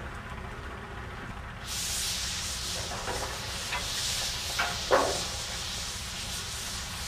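A steady hiss of air venting comes in suddenly about two seconds in, over the low rumble of engines on a drilling rig being rigged up. A few knocks and one louder metallic clank come near five seconds.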